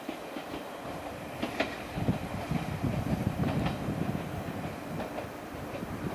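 A car driving past close by: the low rumble of its tyres and engine rises about two seconds in and stays up.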